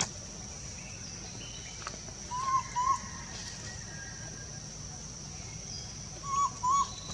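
Baby macaque giving short, whimpering coo calls in two pairs, the second pair about four seconds after the first, over a steady high-pitched background drone.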